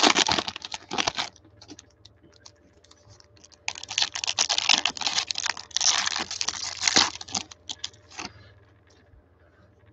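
Foil trading card pack wrapper crinkling and tearing as it is ripped open, in two spells about three seconds apart, with scattered light clicks and taps of the cards being handled between.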